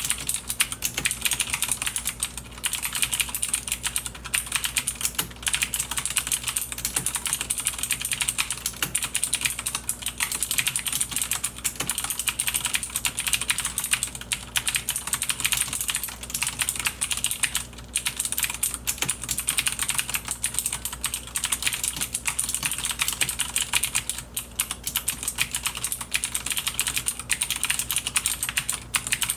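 Logitech G610 mechanical keyboard with clicky Cherry MX Blue switches being typed on lightly and continuously: a dense run of sharp clicking keystrokes, with a few brief pauses. The keycaps bottoming out and the case ringing are fairly loud.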